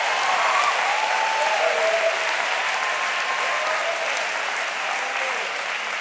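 A large audience applauding, with a few voices calling out over the clapping. The applause slowly dies down.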